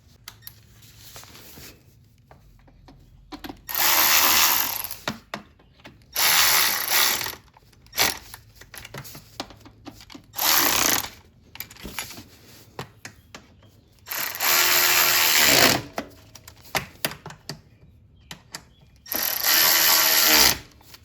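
Cordless power driver spinning bolts into the skid plate of a Yamaha YFZ 450 ATV, running in about six runs of a second or two each, its motor pitch shifting as each bolt runs down and tightens.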